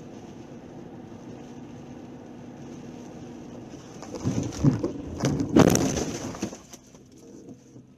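Car driving on a wet road, steady cabin and tyre noise. About four seconds in comes a burst of loud thumps and knocks lasting about two seconds, then it quietens.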